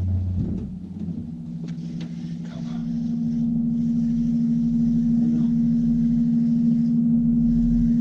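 Electric trolling motor humming steadily on a small aluminium boat. Its pitch steps up about a second in and it grows louder around three seconds in. A few light clicks early on.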